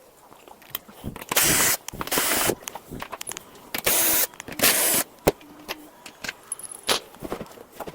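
Hand work on a treadmill during a belt change: scattered clicks and knocks, with four short hissing bursts of under half a second each in the first five seconds.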